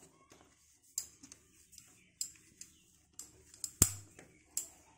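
Soft dough being kneaded by hand on a stone kitchen slab: irregular small slaps and clicks as the dough is pressed, folded and pulled against the stone, with one louder slap about four seconds in.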